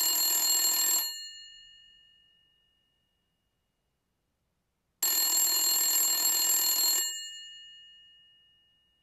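Telephone ringing twice. The first ring stops about a second in, and a second ring of about two seconds comes about five seconds in. Each dies away with a ringing tail.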